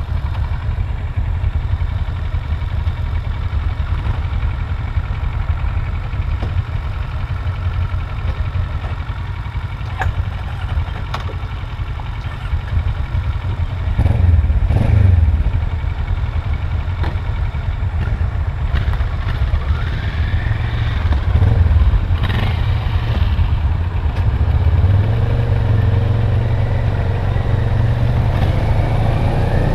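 A motorcycle engine under way, heard from a camera mounted on the bike with heavy wind rumble. The engine rises in pitch several times as it accelerates through the gears, and about 14 s in another motorcycle passes close by and the sound briefly swells.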